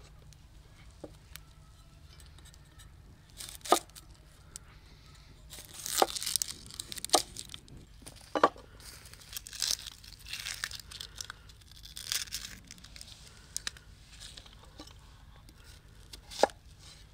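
Kitchen handling noise during food preparation: irregular tearing and crinkling with a few sharp knocks.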